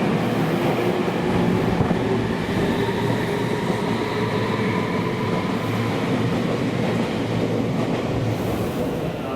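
Meitetsu electric train running at a station platform: steady wheel and rail rumble with a faint motor whine.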